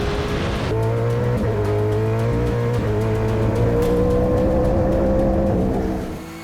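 Race car engine running hard under acceleration, its pitch climbing steadily, with a change in the sound about 0.7 seconds in and the level dropping as it eases off near the end.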